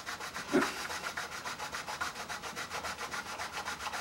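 Cane double reed in a wheeled cradle rubbed back and forth on sandpaper on a flat sanding board: a fast, even scraping of the reed's blades, thinning them toward the point where the reed crows. One brief louder sound comes about half a second in.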